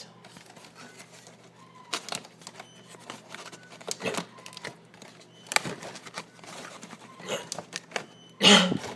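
Scattered short clicks and knocks over a faint steady hum, with a louder knock near the end.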